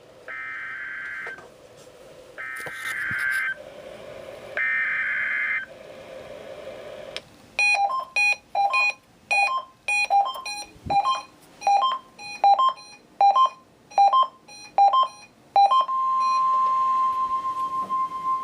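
NOAA Weather Radio Required Weekly Test signals over a radio receiver: three one-second bursts of screechy SAME digital header data, then a run of short beeps alternating between two pitches, about two a second. Near the end comes the steady 1050 Hz warning alarm tone that switches on alert radios.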